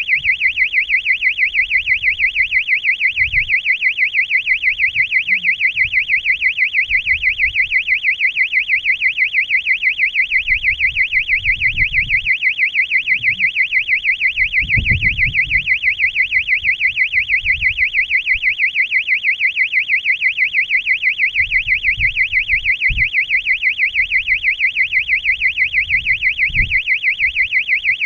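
Electronic buzzer on the balloon payload sounding a steady, high-pitched tone that warbles rapidly and evenly, like an alarm, with a few faint low knocks underneath.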